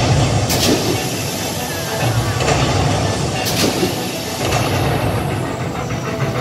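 Show soundtrack over the theatre's sound system for a staged meteor shower and forest fire: a loud, continuous low rumble with two sharp rushing hits, about half a second and three and a half seconds in.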